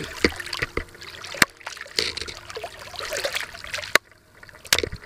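Shallow water splashing and trickling as a caught eel thrashes, broken by about half a dozen sharp knocks, with a brief lull about four seconds in.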